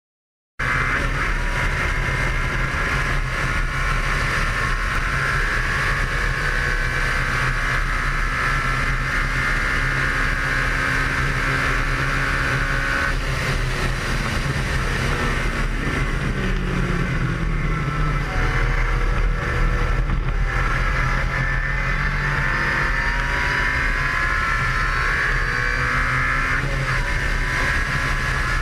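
Ariel Atom engine running hard on track, heard onboard from the open cockpit over a steady low rumble. Its pitch falls around the middle as the car slows, then climbs again near the end as it accelerates.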